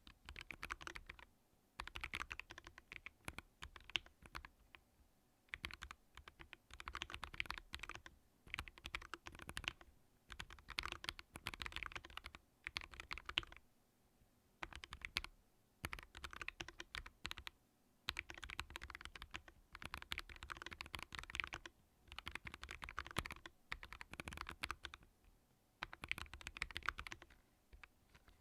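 Typing on a Vortex Core 40% mechanical keyboard fitted with Kailh Custom Plastic key switches, with 3 mm PORON foam between plate and PCB: rapid runs of keystrokes lasting a second or two, with short pauses between them.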